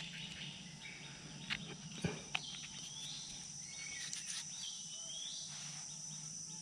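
Forest ambience: a steady high-pitched insect drone, with a few short gliding bird calls in the second half. A few sharp clicks come around two seconds in.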